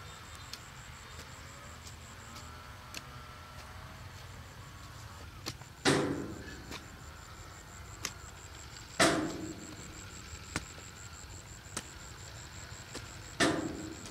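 Three heavy strikes, one every three to four seconds, each dying away over about half a second, over a steady high thin whine and a few small clicks.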